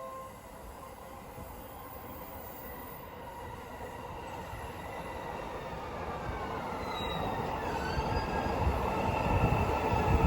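JR commuter electric train running along the station platform, getting steadily louder as it speeds up or draws near, with rumbling wheels and a faint gliding whine.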